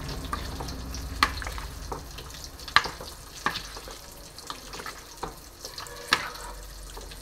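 Spatula stirring a cauliflower and potato curry in a non-stick frying pan. It knocks and scrapes against the pan several times over a low sizzle.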